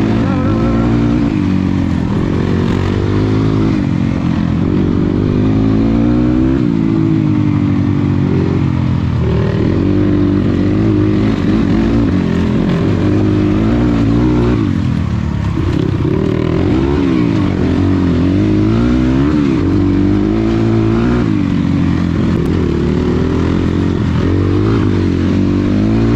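Dirt bike engine being ridden hard on a dirt track, its pitch repeatedly rising and falling as the throttle is opened and closed through the gears.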